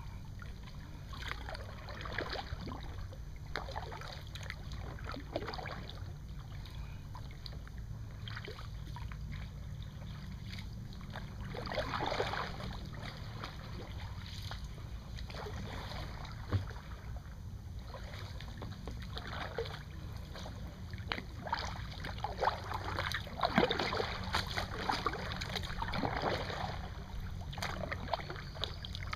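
Kayak paddle blades dipping and splashing in calm water in irregular strokes, with water dripping off the blades, over a steady low rumble.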